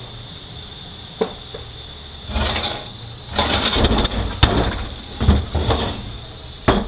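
Metal parts of a 4R75W automatic transmission's front pump being handled on the bench: scattered knocks and clinks with short stretches of scraping, over a steady faint hiss.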